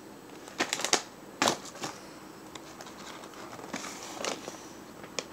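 Cardboard frozen-meal boxes being handled and moved, with a quick cluster of sharp taps a little under a second in, a single knock at about a second and a half, then softer tapping and rustling.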